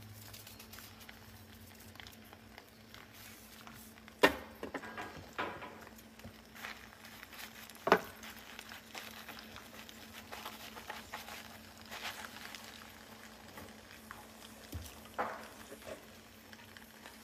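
Liquid sizzling and bubbling in a frying pan around a foil packet. A few sharp knocks of a utensil against the pan cut through it, the loudest about four and eight seconds in.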